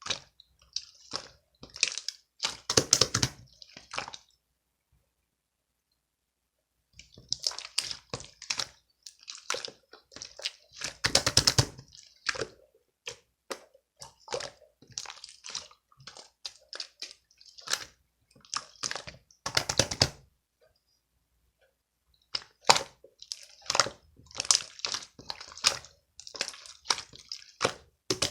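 Irregular wet squishing, dripping and crackling sounds in short runs, stopping completely twice for a few seconds.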